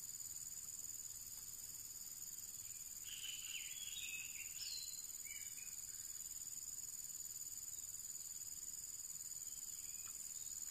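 Steady high-pitched insect trilling, with a few short bird-like chirps about three to five seconds in.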